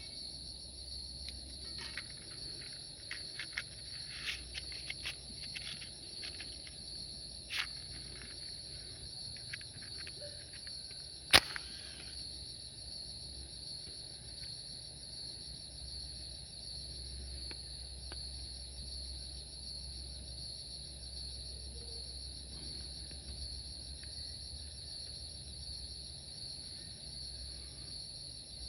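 Steady chorus of insects, a continuous high-pitched buzz. Scattered light clicks and knocks in the first dozen seconds, with one sharp loud click about eleven seconds in.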